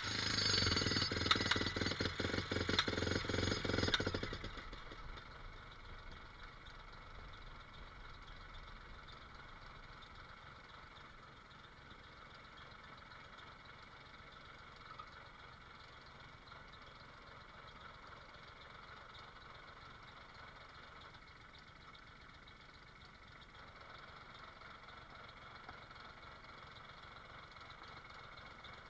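Jackhammer hammering rapidly for about four seconds, then stopping suddenly, leaving an engine idling steadily and much more quietly.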